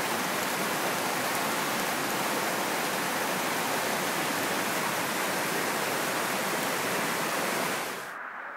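Steady rushing of a creek running over rocks, with rain, which drops away abruptly to a faint hiss near the end.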